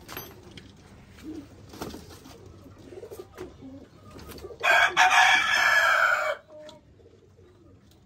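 A rooster crows once, loud, for nearly two seconds a little past halfway, cutting off abruptly. Quiet stretches around it carry faint pigeon cooing.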